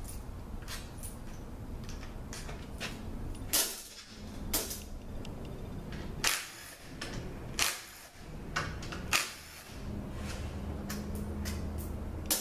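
Cordless drill/driver backing out the valve-body bolts on a Toyota A340 automatic transmission, with about six sharp metallic clicks and clacks of the tool and bolts against metal over a steady low shop hum.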